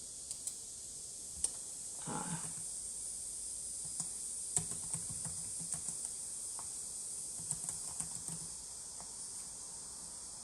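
Scattered clicks and taps on a computer keyboard, irregular and quick, with a brief burst of handling noise about two seconds in, over a steady hiss of background noise.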